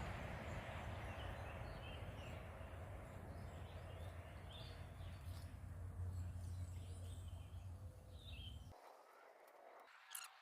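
Faint outdoor ambience: a low, even rumble with scattered short bird chirps. It cuts off abruptly to near silence nearly nine seconds in.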